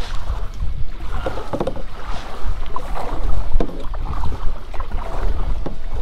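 Canoe being paddled on a river: paddle strokes splashing the water and knocking now and then, over a low wind rumble on the microphone.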